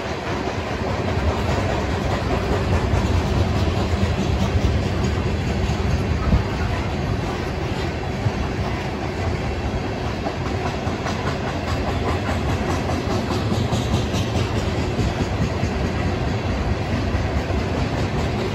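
Freight train of tank cars rolling past: a steady rumble of steel wheels on rail with light, repeated clicking.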